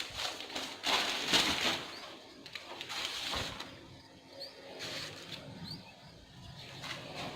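Broom swishing and scratching as it sweeps dust across a floor, in several strokes, the strongest about a second in. Birds chirp briefly a few times.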